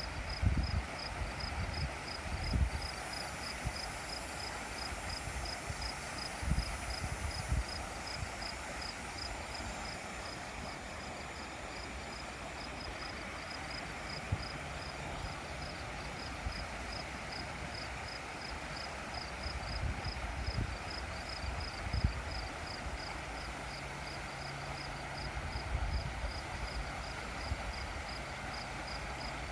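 Steady rush of flowing creek water, with a high chirp repeating about three times a second throughout and a few low thumps.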